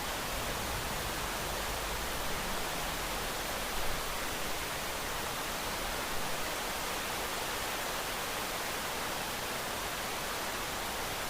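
Steady rain sound effect: a dense, even hiss of falling rain with no single drops standing out, briefly a little louder about four and six seconds in.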